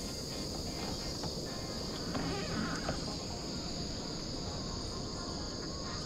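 Steady, high-pitched shrilling of insects from the wooded shore, over a low steady rumble.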